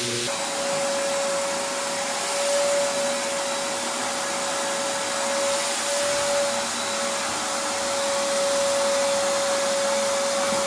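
Terrazzo floor grinder running steadily, wet-grinding the stone into a slurry, with a constant motor whine over the noise of the grinding.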